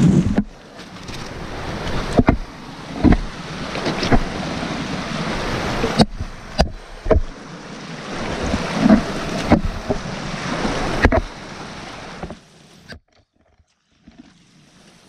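Rushing glacial stream water with wind buffeting the microphone, broken by irregular knocks of footsteps and a trekking pole on loose rock. The sound cuts off sharply about twelve seconds in.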